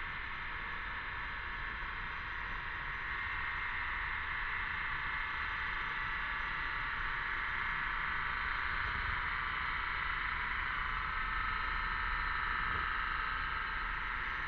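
Cicadas buzzing in chorus, a steady high-pitched drone that grows a little louder partway through.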